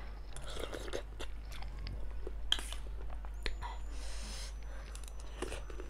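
Close-up eating sounds: chewing, slurping and mouth clicks of someone eating a bowl of chicken thukpa noodle soup, with a steady low hum underneath.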